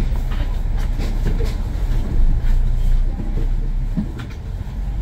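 Kowloon Motor Bus on the road, a steady low engine and road rumble with scattered sharp clicks and rattles.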